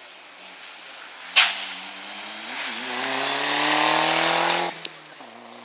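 A Ford Sierra rally car's engine: a sharp bang about a second and a half in, then the engine accelerating hard, its pitch climbing steadily through a brief wobble. Near the end the revs cut off suddenly with a click, and the engine carries on at a lower, steady pitch.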